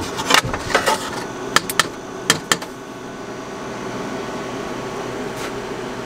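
Sharp knocks and clicks of a plywood sheet and a small cut-out wooden piece being handled and lifted off a metal honeycomb laser bed, about six in the first two and a half seconds, over a steady fan hum.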